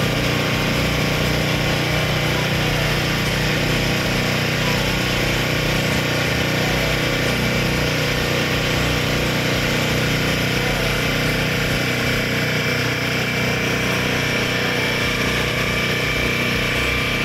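Ornamental fountain running: water splashing steadily, with a steady mechanical hum underneath.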